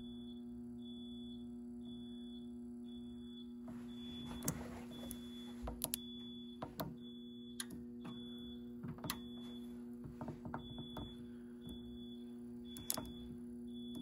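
Fire alarm control panel's piezo beeper giving a short high beep a little under twice a second, over a low steady hum. From about four seconds in, the panel keypad's buttons are pressed, giving a series of sharp clicks and taps.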